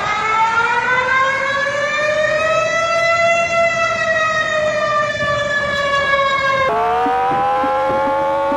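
Civil defense warning siren wailing: one tone slowly climbs in pitch over about three seconds, levels off and sags slightly, then cuts off abruptly about seven seconds in to a second siren tone that climbs again.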